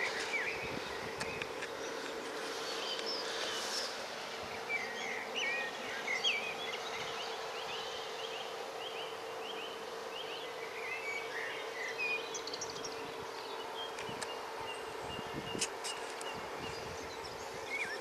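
Several songbirds singing, with varied chirps and short whistled notes, over a steady faint drone.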